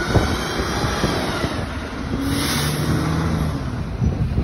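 London buses passing close by on the street: engine running and tyre noise as a single-decker pulls past, with a brief hiss about halfway through.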